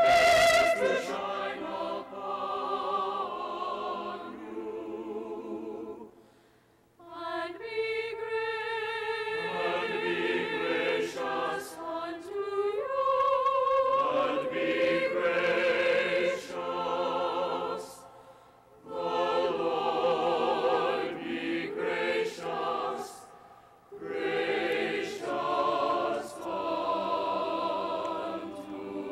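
A choir singing a slow choral blessing in held, sustained chords with vibrato. The phrases are broken by short pauses about six, eighteen and twenty-four seconds in.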